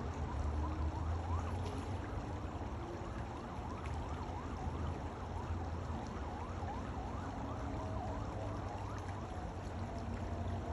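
Shallow creek water running steadily over a gravel bed, with a low steady rumble underneath. Through the middle, a rapid series of short whistle-like rising and falling glides sits above the water noise.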